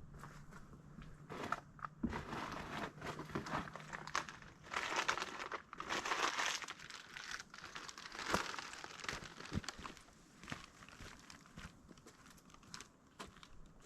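Irregular crinkling and rustling, loudest through the middle stretch and quieter near the end.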